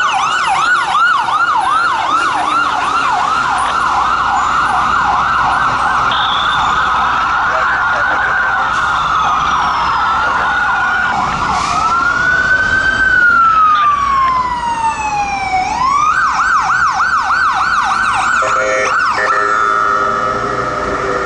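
Emergency sirens of a fire engine and an ambulance, switching between a fast yelp and a slower wail as they pass. A horn blast sounds near the end.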